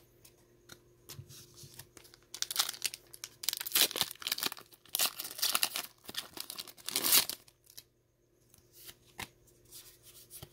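Foil wrapper of a Pokémon TCG Evolutions booster pack torn open and crinkled by hand, in loud ripping and crinkling for about five seconds, starting a couple of seconds in. Near the end come softer rustles and clicks as the cards are slid out of the pack.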